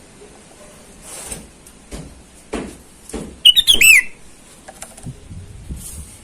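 Sooty-headed bulbul giving a short, quick burst of bubbly whistled notes about three and a half seconds in. Softer knocks and rustles come before it.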